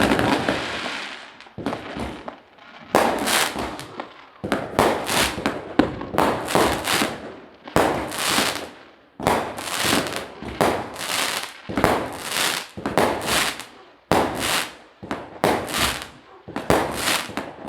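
Fireworks going off in a continuous barrage: sharp bangs one or two a second, each trailing off in a short crackle. The first bang has a longer hissing tail.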